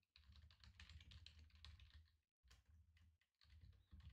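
Faint typing on a computer keyboard: two quick runs of key clicks with a pause about halfway through.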